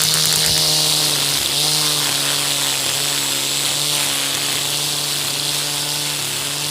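Angle grinder motor running steadily at speed, with a constant hum and a strong high hiss, cut off abruptly at the end.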